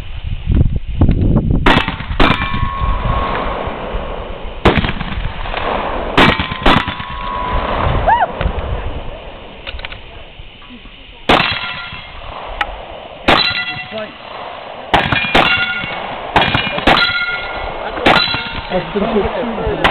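About a dozen gunshots at an uneven pace, many followed by the ringing clang of a hit steel target.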